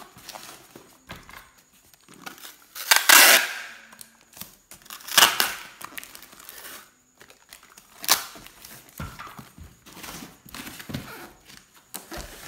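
Packing tape being pulled off a handheld tape dispenser and pressed onto a cardboard box: three loud tearing pulls, the first two longest, with crinkling and rubbing of tape and plastic wrap under the hands between them.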